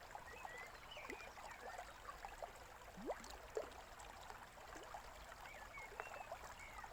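Small stream trickling and gurgling faintly, with a few short bird chirps.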